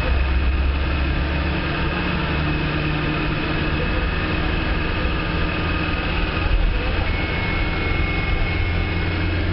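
A local bus's engine running steadily under way, heard from inside the cab: a loud, continuous low drone with a faint steady high whine above it. The engine note shifts slightly about seven seconds in.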